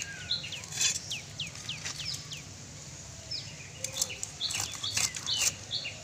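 Small birds chirping in quick runs of short falling notes, with a few sharp crunches and knocks as fish flesh and bone are pressed through a boti, a fixed upright cutting blade.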